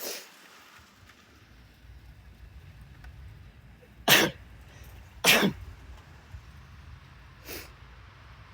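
Wind rumbling on the microphone, broken by two short, loud bursts about a second apart near the middle.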